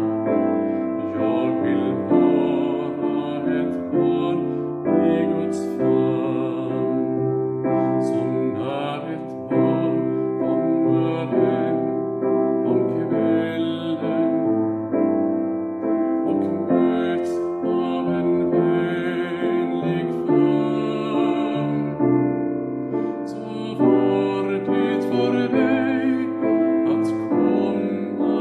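A man singing a Swedish song with vibrato to piano accompaniment.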